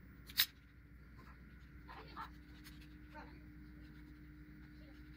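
Small parts being handled and fitted onto a 3D-printed plastic enclosure: one sharp click about half a second in, then a few faint taps and rustles, over a faint steady hum.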